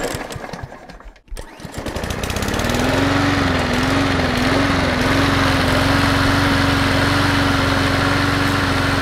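A short clattering burst, then a small lawn mower engine starts about a second in. Its speed wavers for a couple of seconds, then settles into a steady run.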